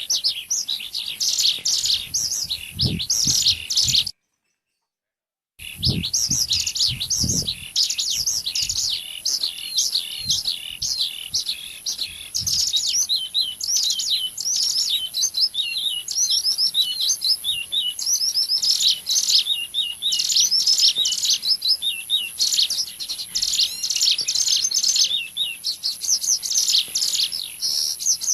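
Lure recording of ciblek gunung (mountain prinia) calls: rapid, continuous high-pitched chirping and trilling, cut by a brief complete silence about four seconds in.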